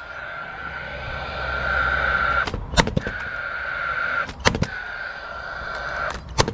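Paslode cordless gas nailer firing about three times, roughly two seconds apart, driving nails into roof timber, with the tool's fan whirring steadily between shots.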